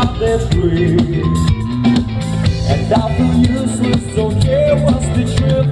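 A live rock band playing through a PA: a vocalist singing a melody over electric guitars, bass and a drum kit keeping a steady beat.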